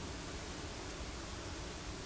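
Steady rain and wind: an even hiss with a low rumble underneath, no single thunderclap.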